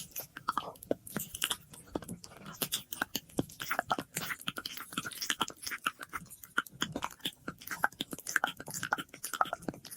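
Close-miked ASMR mouth sounds: a rapid, irregular run of wet clicks and smacks of lips and tongue, with an added echo.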